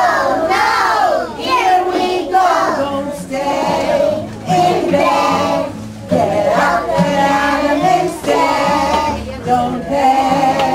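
A group of young children singing a song together, with a steady musical accompaniment under their voices.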